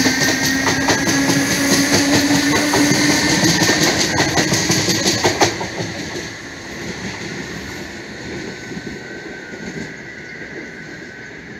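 DART electric train accelerating along the near track, its traction motors whining upward in pitch over a rapid clatter of wheels on the rails. The clatter stops about five and a half seconds in, and a fainter rail rumble remains.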